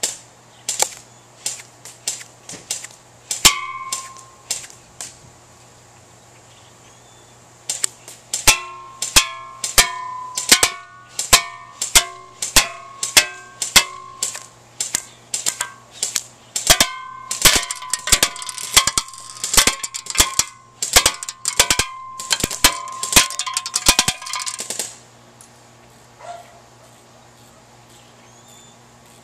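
JG G36K airsoft electric gun firing single semi-automatic shots as sharp cracks. There is a handful in the first five seconds, then after a short pause a steady run of about two a second until roughly 25 s in. Many shots are followed by a short metallic ping of BBs striking a metal can target.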